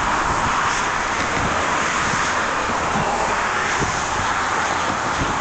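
Strong wind gusts buffeting the microphone in irregular low rumbles over a steady rushing hiss.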